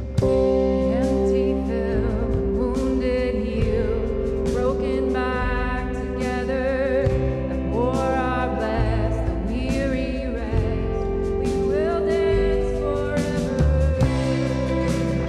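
Live worship band playing a song: a lead singer's voice over acoustic guitar, upright bass, keyboard and a drum kit with cymbal strikes.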